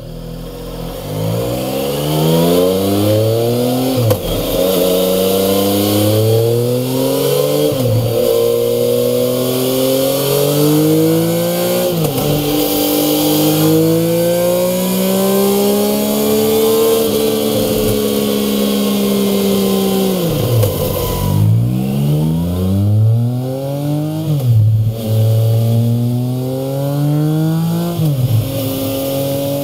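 2016 Triumph Speed Triple's 1050 cc inline-three engine revving hard on a dyno, its pitch climbing through several gears with a sudden drop at each shift. The first runs are on the stock high-mount silencers; after a short break about two-thirds of the way through, it pulls again through MIVV Ghibli high-mount stainless slip-on silencers.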